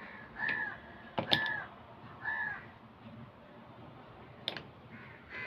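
A bird calling three times in short, harsh calls about a second apart, with a couple of sharp clicks.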